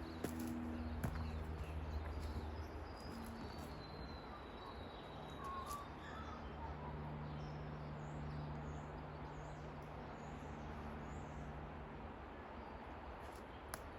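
Forest ambience: faint, scattered bird chirps and a long falling whistle a few seconds in, over a steady hiss. A low steady hum runs underneath.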